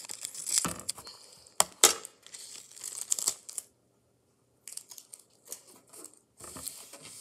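Clear packing tape and paper being handled: crinkling and tearing in short irregular bursts, with a few sharp clicks in the first two seconds.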